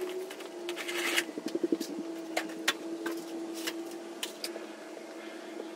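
Spin mop being worked over a vinyl-plank floor: scattered light taps and knocks, with a short rattle about a second in. A steady hum runs underneath.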